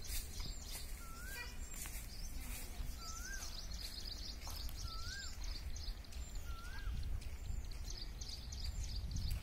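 Birds calling in the open: a clear whistle that rises and falls, repeated four times about every one and a half to two seconds, over a steady chatter of high, quick chirps, with a low rumble underneath.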